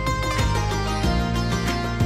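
Instrumental background music led by a plucked string instrument, with a steady run of plucked notes over a sustained low bass.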